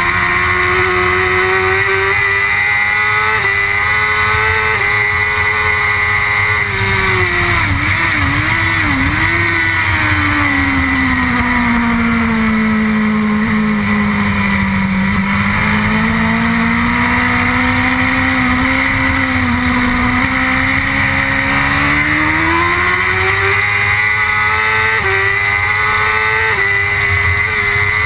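BMW S1000RR superbike's inline-four engine at racing revs, heard from on board with wind rush. Its pitch dips twice about eight seconds in, falls low through the middle as it runs through a long corner, then climbs steadily again with gear changes near the end.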